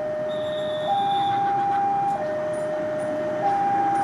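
Railway level-crossing warning alarm sounding a two-tone signal, a lower and a higher tone alternating about every 1.3 seconds, over the rumble of passenger coaches rolling along the track.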